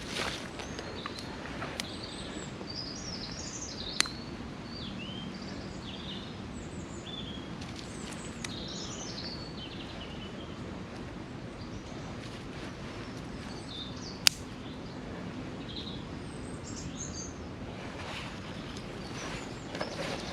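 Woodland birds chirping and singing on and off over a steady background hum of outdoor noise, with two sharp clicks, one about four seconds in and one about fourteen seconds in, and a few fainter crackles near the start and the end.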